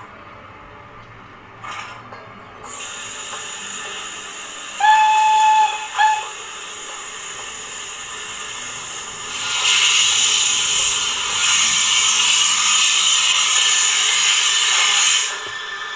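Sound decoder in an OO-gauge S&DJR Johnson 1P model steam locomotive playing its Youchoos steam sound file through the model's speaker: a steady hiss of steam, a whistle held for about a second about five seconds in, then a short second toot. From about halfway a louder rush of steam sets in and stops suddenly about a second before the end.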